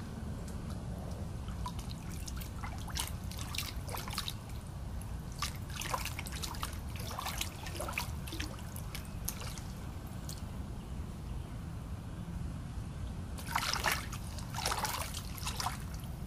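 Pond water splashing and dribbling in short, irregular splashes, with a louder run of splashes near the end.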